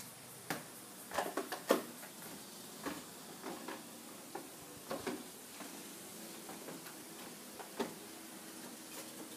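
Scattered light clicks and knocks, with the loudest cluster about a second and a half in: footsteps on a timber deck and the handle and frame of a metal security screen door being worked.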